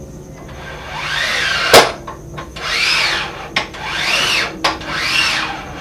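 Veritas quick-release front vise jaw being run in and out: four sliding strokes, each rising and then falling in pitch, with sharp knocks between them, the loudest a little under two seconds in.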